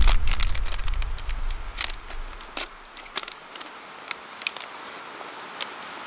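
Background music fading out over the first two seconds or so. Then a faint hiss with scattered sharp clicks and pops from a cast-iron Dutch oven of simmering tomato meat sauce being stirred with chopsticks.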